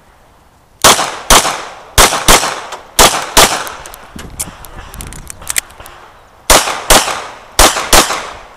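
Pistol fired in quick double taps during a practical shooting stage: about ten loud shots in pairs, each pair a few tenths of a second apart, with a short echo after each shot. Between the first three pairs and the last two there is a gap of about three seconds that holds only fainter sounds.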